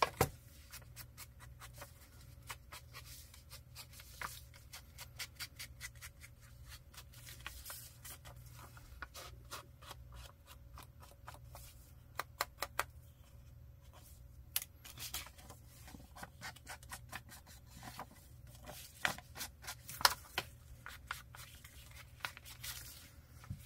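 Paper and small craft tools being handled on a table: irregular small clicks, taps and scrapes, a few sharper ones in clusters, over a faint steady hum.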